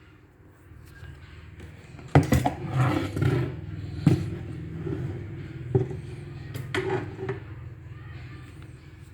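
Sharp metallic clicks and knocks from an airgun, four loud ones spread over several seconds, over a steady low hum.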